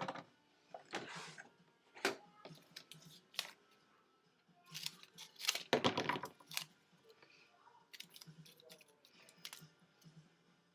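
Scattered clicks, taps and paper rustles of hands working with scissors and cardstock, with a louder rustle a little past halfway.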